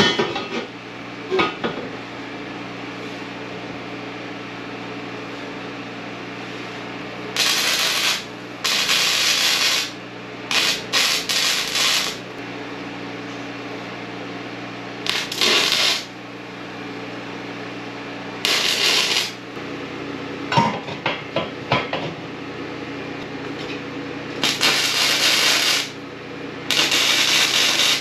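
Electric arc welding on a square-tube steel frame: short tack welds and beads crackling and sizzling in bursts of one to two seconds, about seven times, with brief pauses between them. A few sharp metal clicks come near the start.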